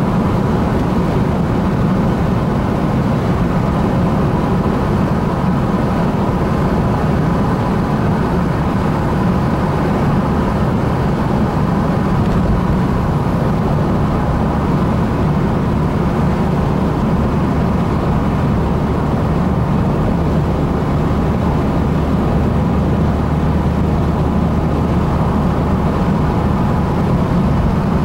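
Steady road and engine noise of a car driving on a motorway, heard from inside the cabin: an even, low rumble with no changes.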